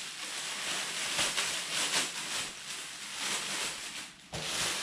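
Clear plastic packing bag rustling and crinkling as it is pulled off and gathered up by hand, with a brief lull about four seconds in.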